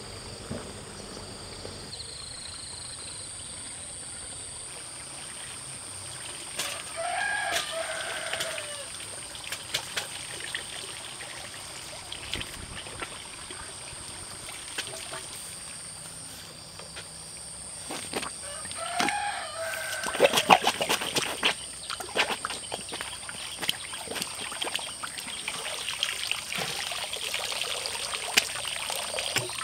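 A rooster crows twice, about twelve seconds apart, each crow a single bending call lasting a second or two. After the second crow comes a run of sharp clicks and knocks.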